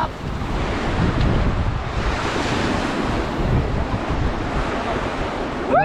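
Ganges river water rushing steadily under a rafting boat, with wind buffeting the microphone.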